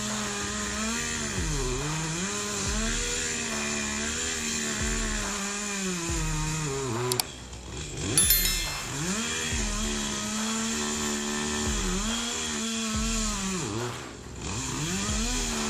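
Chainsaw running at high revs, its pitch dipping and recovering several times. About seven seconds in the sound cuts out briefly and a sharp, loud knock follows before the saw runs on.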